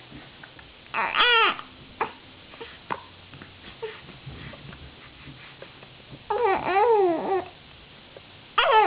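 Newborn baby making short fussing, cry-like vocal sounds: a brief one about a second in, a longer wavering one later, and another starting near the end.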